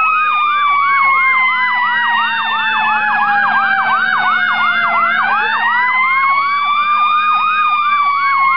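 Two emergency sirens sounding together: a slow wail that glides down in pitch for about five seconds and then climbs again, and a fast yelp that cycles about three or four times a second.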